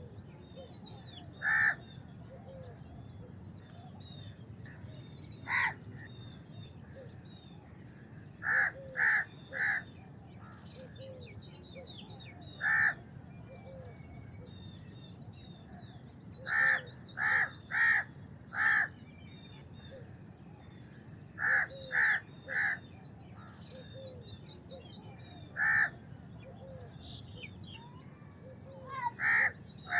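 House crows cawing: single caws and quick runs of three or four, spaced a few seconds apart. Small birds chirp continuously at a higher pitch behind them.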